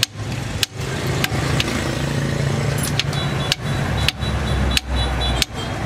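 A hand tube cutter is turned around a copper refrigerant line at a refrigerator compressor to cut it, with a sharp metallic click every half second to a second. A steady low hum runs underneath.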